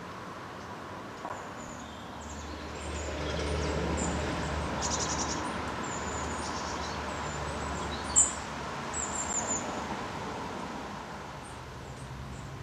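Small birds chirping and calling in short high notes. A low rumble swells for several seconds through the middle, and there is a single sharp knock about eight seconds in.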